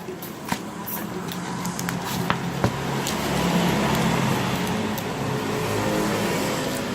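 A motor vehicle's engine running close by, a steady hum that grows louder after about three seconds, with a few sharp clicks and taps in the first three seconds.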